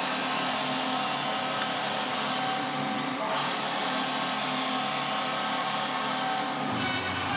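Background music with sustained chords that change every three to four seconds.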